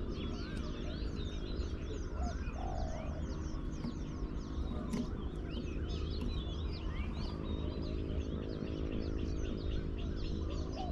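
Dense chirping and twittering of many small birds, with a brief low, rough call about two and a half seconds in, over a steady low hum.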